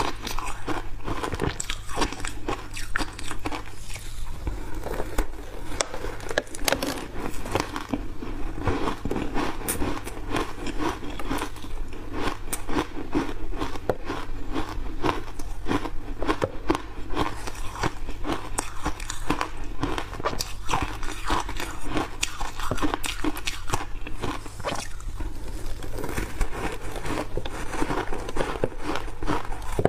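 Close-up crunching and chewing of refrozen block ice coated thickly in matcha powder: a dense, irregular run of crisp crackling bites as the ice breaks between the teeth.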